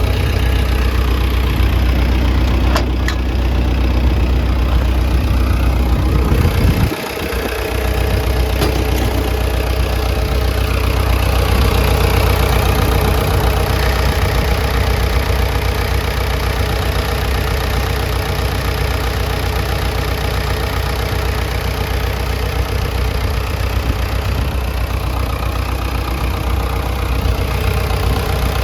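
Komatsu PC160LC-7 excavator's diesel engine idling with a steady, low drone. The sound breaks off for a moment about seven seconds in, then carries on as before.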